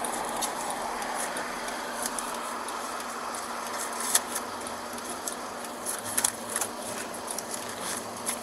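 Steady hum of an idling car with papers crackling and clicking as they are pulled from behind a sun visor and leafed through, the sharpest crackles about four and six seconds in.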